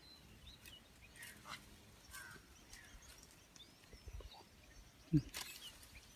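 Faint outdoor ambience with scattered short bird chirps over a low hiss, broken about five seconds in by one short, loud sound that rises in pitch.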